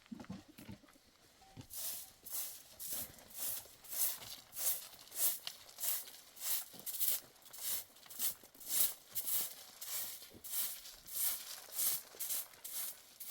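Rhythmic rasping strokes, about three a second, starting about two seconds in.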